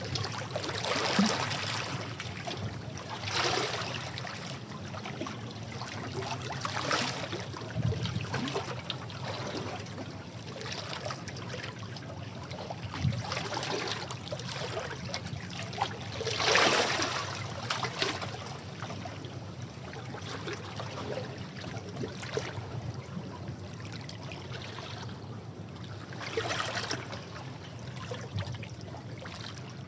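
Sea waves breaking and washing over rocks, with splashes and surges every few seconds over a continuous wash of water.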